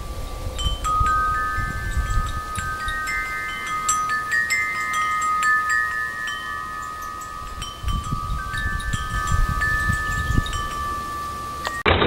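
Metal tubular wind chime ringing, its tubes struck irregularly so that several clear tones ring on and overlap. It cuts off suddenly near the end, replaced by a different, louder sound.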